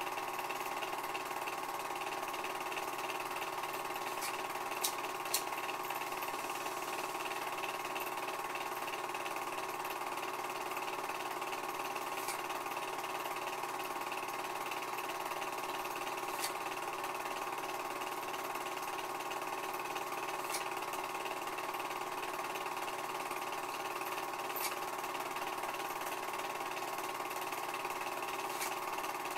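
Film projector running: a steady whirring hum with several fixed tones, and a few faint clicks scattered through.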